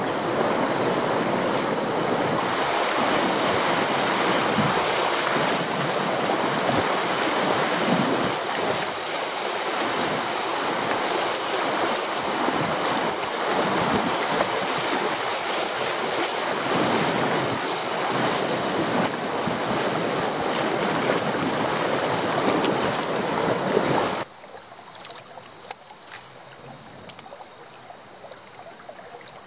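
Rushing whitewater of a shallow river rapid heard from a kayak running through it, loud and steady. About 24 seconds in it cuts off suddenly to the much quieter sound of calm water, with a few small clicks.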